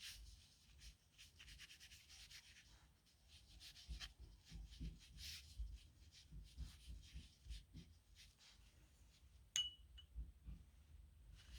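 Faint scratching of a steel nib pen on paper in short strokes. About nine and a half seconds in, one sharp clink with a brief ringing tone.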